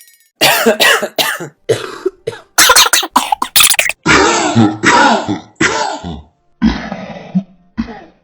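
A string of different recorded coughs played back to back: short, sharp hacks in quick clusters of two to four, with brief silent gaps where one cough clip cuts to the next.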